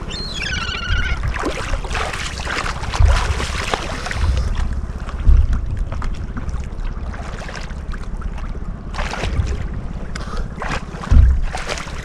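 Seawater sloshing and splashing close to the microphone, with gusts of wind buffeting it. A gull gives a short wavering call about a second in.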